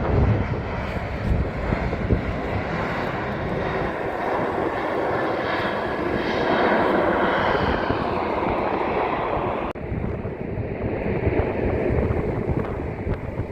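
Airliner's engines heard as the plane passes the airport perimeter: a loud roar that swells to a peak about halfway through, then ebbs, dropping off abruptly near ten seconds in. Wind buffets the phone's microphone underneath.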